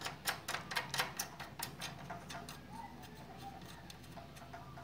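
Light metallic clicks and taps as a bolt is fitted through a steel push rod and the arm of a car power-window regulator. Quick ticks come close together for the first two seconds or so, then the sound thins out and grows fainter.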